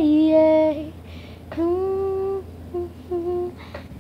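A girl humming a slow tune without accompaniment: two long held notes, then two short ones near the end.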